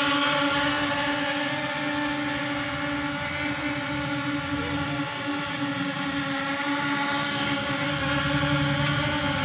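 Small electric motors and propellers of a toy RC quadcopter spinning, a steady whine.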